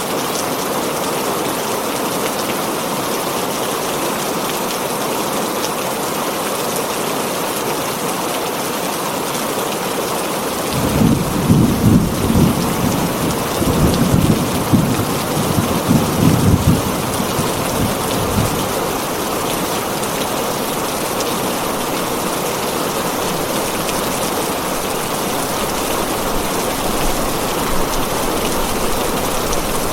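Heavy rain falling steadily on a tin roof, an even hiss throughout. About eleven seconds in, thunder rumbles low for roughly seven seconds, coming in several surges before fading back under the rain.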